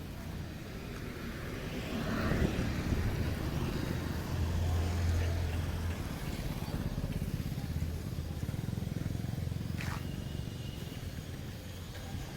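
Motor vehicle engine noise, a steady low rumble that swells about four to six seconds in. A single sharp click comes near the end.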